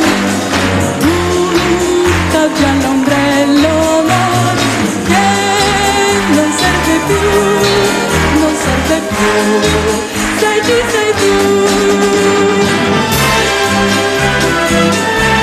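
Live orchestra playing an up-tempo instrumental break of a pop song with a steady beat.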